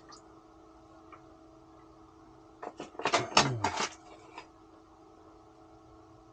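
A short clatter of knocks and clicks lasting about a second and a half, starting a little under three seconds in: a plastic ice-fishing tip-up being handled and lifted off the hole. A faint steady hum runs underneath.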